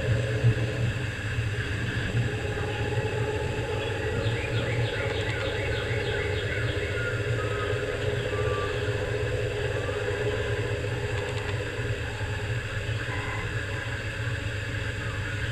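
Steady low background hum, with a short run of faint, rapid high chirps about four to six seconds in and a few more near the end.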